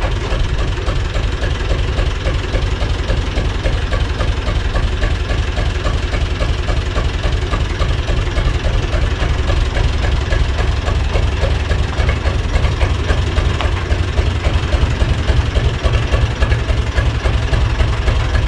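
UTB tractor's diesel engine running steadily at low revs as the tractor moves slowly forward.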